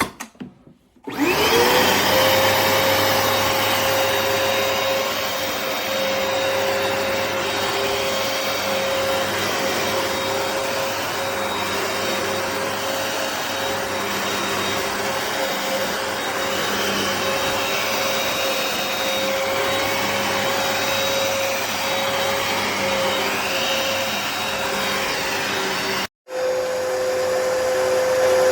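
Hoover PowerDash Pet carpet cleaner's motor starting about a second in, its whine rising quickly and then running steadily with a rushing suction noise. It cuts out for an instant near the end and resumes.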